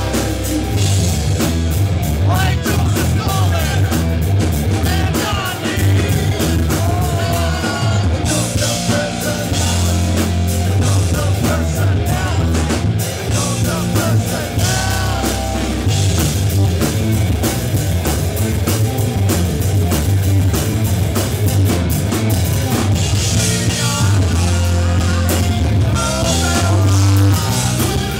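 A rock band playing live: electric guitar, bass guitar and drum kit, with a male lead singer's vocals coming and going over them.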